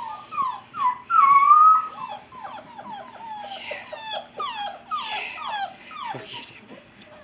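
Alaskan Noble Companion Dog puppies whining: a rapid string of short, high, falling whimpers, with one longer, louder whine about a second in.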